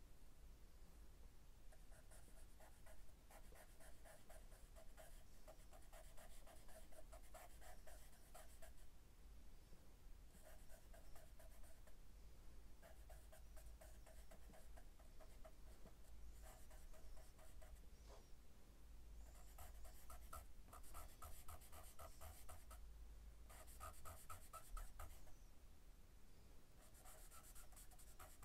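A pencil scratching on sketchbook paper in bursts of quick back-and-forth strokes, each burst a few seconds long with short pauses between. Faint.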